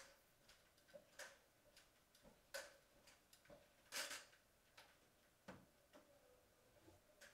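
Near silence with faint, irregular clicks or taps, roughly one every half second to a second, the loudest about four seconds in, over a faint steady hum.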